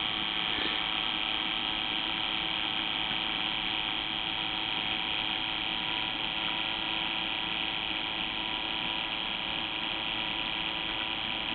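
Small electric water pump running steadily, a constant motor hum with a high whine, as the controller refills the cup after sensing a low water level.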